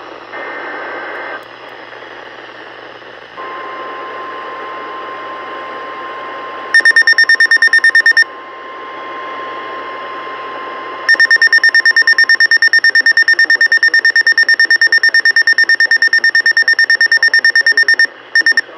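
NOAA Weather Radio weekly test signal. The last SAME digital header bursts warble at first. About three seconds in, the steady 1050 Hz warning alarm tone starts. A weather radio receiver's alarm answers with loud, rapid, high-pitched beeping, briefly at first, then continuously for about seven seconds. It cuts off near the end with one last short burst.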